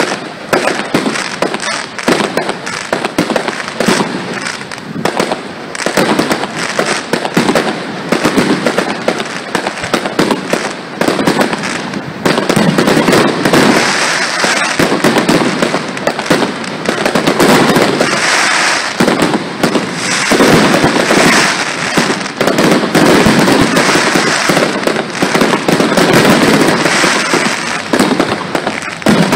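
Fireworks display: many overlapping bangs in quick succession with no pause, growing louder about twelve seconds in.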